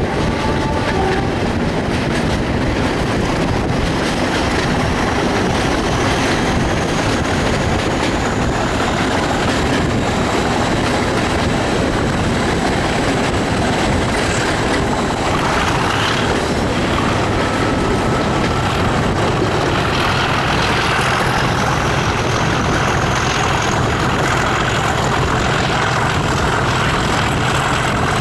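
Two Class 37 diesel locomotives working hard under power, their English Electric V12 engines giving a loud, steady thrash as heard from a carriage window behind them, mixed with wheel and rail noise.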